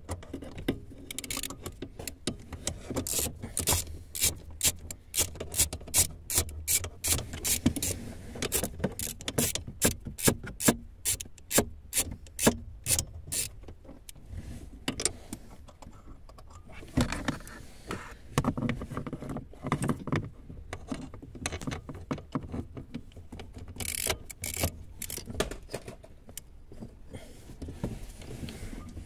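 A hand ratchet clicking in quick runs of sharp metallic clicks, with the odd knock of the tool, as fasteners are worked loose under a car's dashboard.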